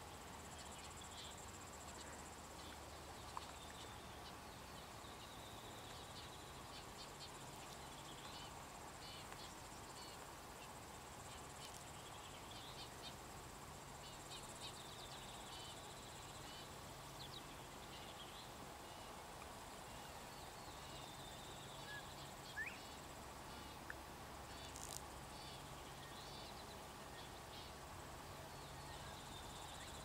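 Faint insect chorus: a steady high hum with many scattered short chirps, and a brief rising chirp about two-thirds of the way through.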